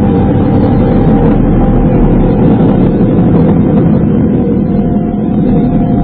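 Processed space-radio recording presented as solar wind near the rings of Uranus: a dense, steady low rumble with faint held tones above it.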